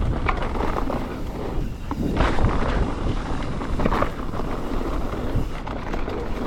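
Mountain bike descending fast on a dirt trail: wind buffeting the action camera's microphone over tyre and bike rattle, with a few brief knocks as the bike hits rough ground.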